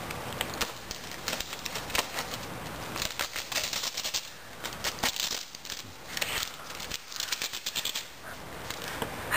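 Wrapping paper crinkling and tearing as a Bengal cat claws and paws at a wrapped gift box, in runs of quick scratchy rustles that are busiest from about three seconds in.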